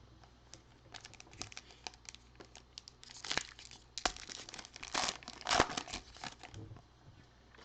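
Plastic foil wrapper of a Contenders football card pack crinkling and tearing as it is opened by hand, in irregular crackles with a few louder rustles midway.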